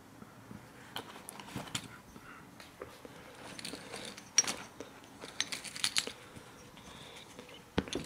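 Handling noise: scattered soft rustles and small clicks as a white rear-shock-absorber bump stop with a metal cap is turned over and pressed in the hand, with a sharper click near the end.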